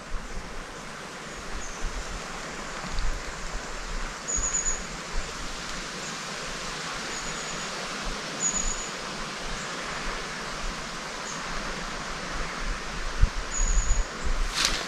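Steady rushing outdoor ambience with a small bird's thin, high calls a few times, and footsteps on the path near the end.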